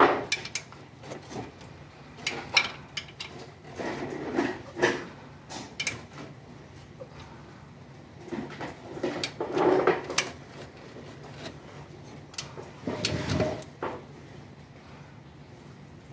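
Socket wrench on a long extension working a bolt on the underside of a car engine: scattered metal clicks and several short bursts of clicking and clinking, the loudest at the very start and about 13 seconds in.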